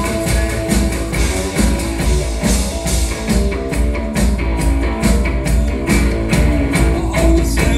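Live blues-rock instrumental passage: amplified guitar over a steady drum beat with heavy bass.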